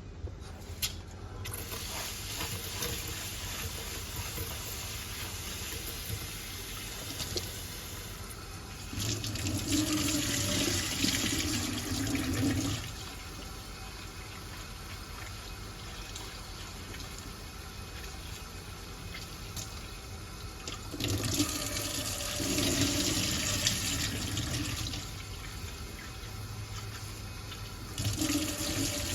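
Water running steadily, growing louder for three stretches of a few seconds each, about 9, 21 and 28 seconds in.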